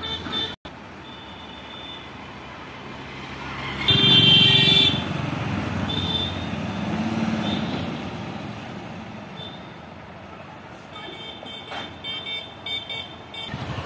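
Tipper lorry's diesel engine running steadily as its dump bed's hydraulic ram lowers. A vehicle horn gives one loud honk about four seconds in, and a run of short high-pitched beeps comes near the end.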